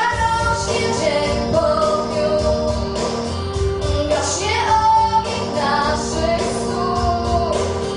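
A girl singing a song into a microphone over instrumental accompaniment.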